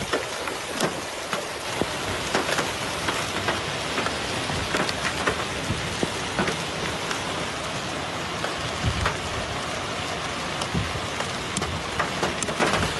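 Heavy hailstorm: rain and hailstones pelting hard ground in a steady downpour, with many sharp ticks of individual stones striking.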